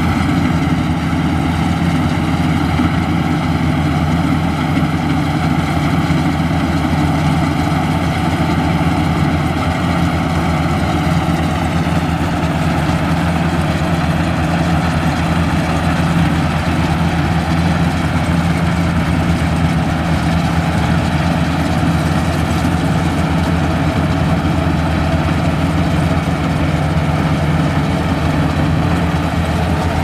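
Maxxi Bimo 110 Plus rice combine harvester running steadily as it cuts and threshes standing rice, a constant loud engine and machinery drone.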